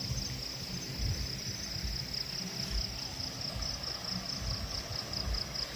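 Crickets chirring in a steady, high, rapidly pulsing trill, with irregular low bumps underneath.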